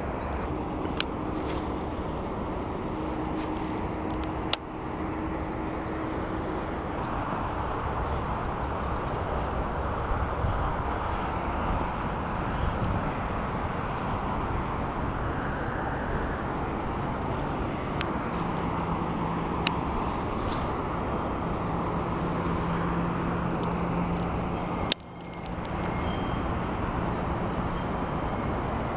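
Steady rush of distant road traffic, with faint engine hum coming and going and a few sharp clicks. The sound dips out briefly near the end.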